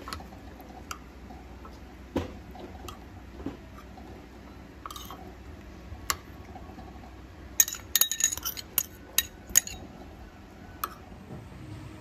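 Metal spoon stirring a liquid dipping sauce in a ceramic bowl, clinking against the bowl now and then, with a quick run of sharper, louder clinks a little past the middle.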